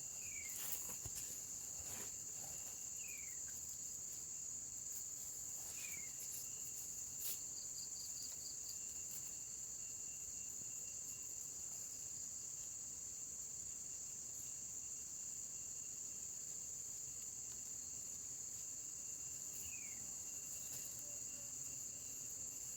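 Steady high-pitched drone of insects, crickets or cicadas, with a few short falling chirps now and then and a brief click about seven seconds in.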